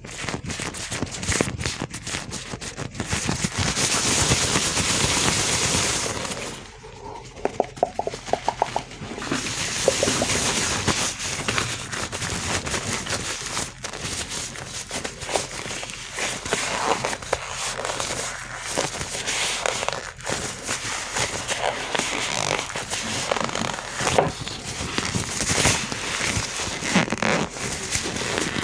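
Gloved hands rubbing and crinkling close to the microphone: a dense run of rapid crackles and clicks, stretches of steady rubbing, and a brief quieter dip about a quarter of the way in.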